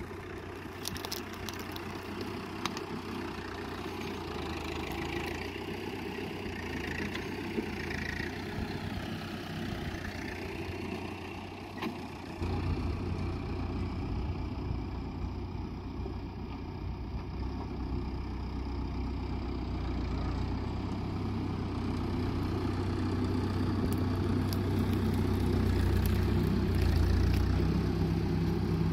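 Massey Ferguson tractor engine running steadily under load while pulling a two-bottom mouldboard plough. It gets louder about twelve seconds in and keeps growing louder toward the end as the tractor nears.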